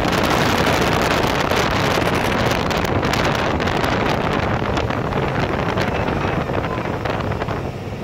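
Open-cab side-by-side off-road vehicle's engine running as it drives along, with heavy wind buffeting the microphone; the sound dips briefly near the end.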